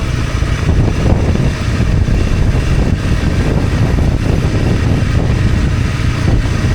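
Honda CRF250 Rally's single-cylinder engine running steadily as the motorcycle rides down a mountain dirt road, a dense low rumble with no pauses.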